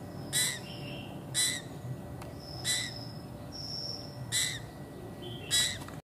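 Fledgling common ioras calling: five short chirps spaced a second or so apart, with two thin, steady whistles between them.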